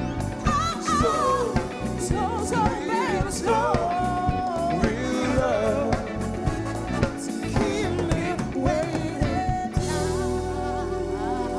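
Live soul band playing: drums, bass, guitar and keyboards under male and female lead vocals, sung with vibrato. Near the end the beat stops and a held chord rings on.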